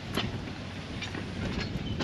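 Train of loaded sugar cane bins on a 2 ft gauge cane tramway rolling past: a steady low rumble with irregular clicks and short high squeaks from the wheels.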